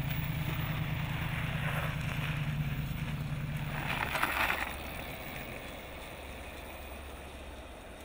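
Home-built electric motorcycle riding by with a steady low hum and tyre and wind noise, swelling to a peak about four seconds in. It then drops suddenly to quieter, distant road noise.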